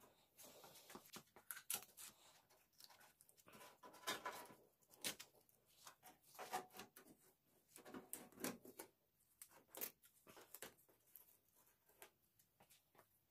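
Irregular crinkling and tearing as a paper decal stencil and strips of blue painter's tape are peeled off a painted aluminium jon boat hull.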